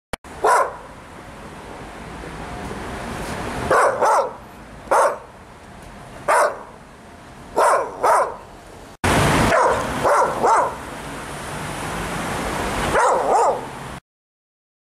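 A dog barking in short, loud barks, about a dozen in all, singly and in quick pairs and clusters, over a rushing background noise that swells between the barks. The sound cuts off suddenly near the end.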